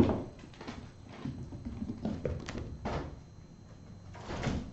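Kittens playing: a loud thump right at the start, then scattered light taps and knocks.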